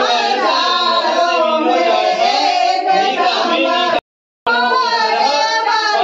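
A group of people singing together, several voices at once. About four seconds in, the sound drops out completely for half a second.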